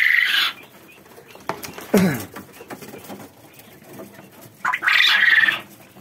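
Caged Japanese quail calling: two loud, rasping calls, one right at the start and another about five seconds in, with a brief sound falling in pitch around two seconds in.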